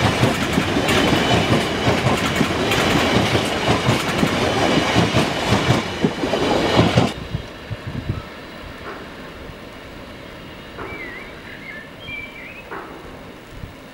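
Freight train wagons passing close by: a loud rumble with a rapid clickety-clack of wheels over the rail joints. It cuts off abruptly about seven seconds in, leaving a faint steady rumble of the train receding.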